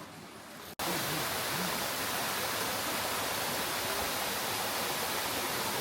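Waterfall: a steady, loud rush of falling water that starts abruptly about a second in, after quieter surroundings.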